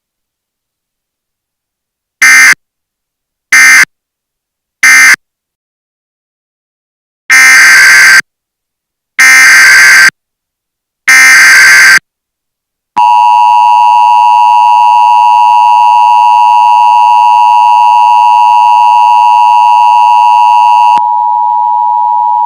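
Emergency Alert System SAME data bursts and attention signal. Three short screeching data bursts about 1.3 s apart close the previous alert. Three longer bursts (the header of the next alert) follow, then the harsh two-tone attention signal, steady for about 8 seconds. It gives way to a quieter single steady tone for the last second and a half.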